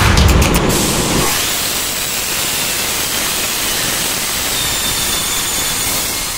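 Air blow on a MAN two-stroke marine main engine: compressed starting air turns the engine over and hisses out of the open indicator cocks in a loud, steady rush. This clears oil or water from the cylinders before the engine is started for a test run.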